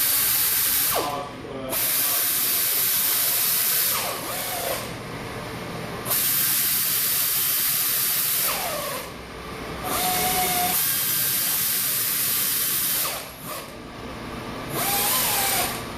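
Power tool running the valve cover screws in, in about five bursts of one to two and a half seconds, each with a loud hiss.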